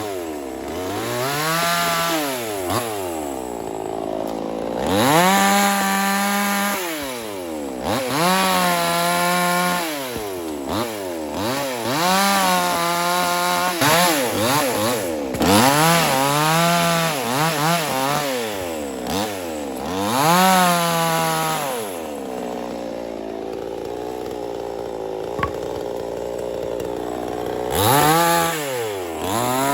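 Kingkong 5800 mini two-stroke chainsaw revving up and dropping back over and over, about once every two seconds. From about two-thirds of the way in it settles to a lower, steady idle, then revs up again near the end.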